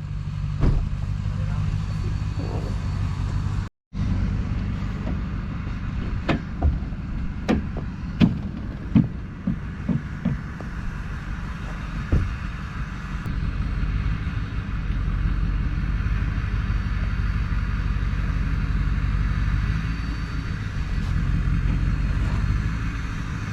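Diesel pickup engine idling steadily, with a run of irregular sharp clicks and knocks in the middle.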